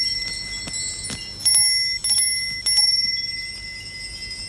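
Metal keys struck one after another, each ringing like a small bell at the same clear high pitch and slowly fading. One ring is already sounding, then there are two more strikes about a second and a half and nearly three seconds in. The keys are being tested by ear for the one that sounds different.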